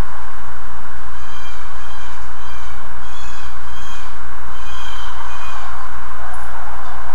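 Blue jay giving a series of about six short, harsh calls, from about a second in until about five seconds in, over a loud, steady hiss and low hum.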